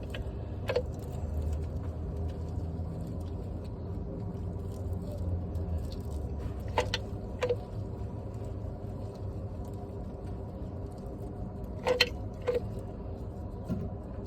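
Manual caulking gun being worked: short metallic clicks of the trigger, coming in pairs about three times, over a steady low hum.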